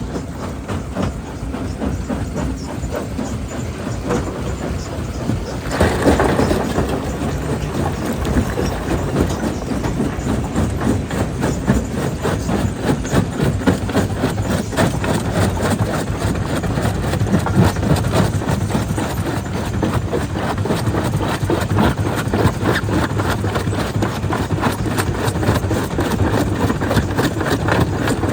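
Jaw crusher running and breaking stone: a steady, dense clatter of rock knocking and grinding over the machine's running noise, with a louder crash about six seconds in.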